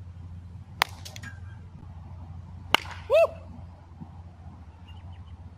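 Baseball bat cracking against a pitched ball twice, about two seconds apart, during batting practice. Just after the second hit comes a brief, loud pitched squeak that rises and falls.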